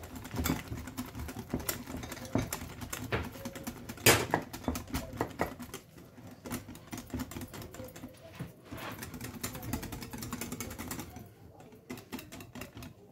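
Hand whisk beating thin crêpe batter in a glass bowl, the wires clicking rapidly and continuously against the glass with a wet sloshing. The clicking grows quieter near the end.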